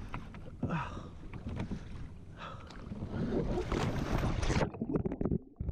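Water splashing and sloshing against a kayak hull as the kayak rocks and tips over, with a heavier burst of splashing about three to four and a half seconds in. Then the sound suddenly goes muffled.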